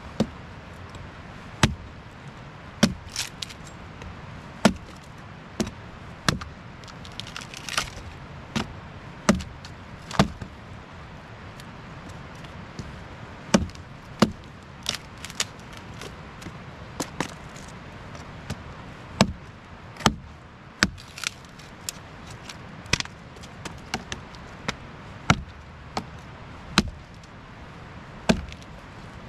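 Axe splitting a piece of old cedar into kindling: a long run of sharp chopping strikes into the wood, irregularly spaced at roughly one a second.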